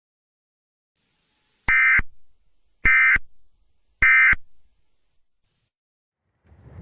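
Emergency Alert System SAME end-of-message signal: three short bursts of digital data tones about a second apart, each trailing off in an echo. A noisy crackling sound starts just before the end.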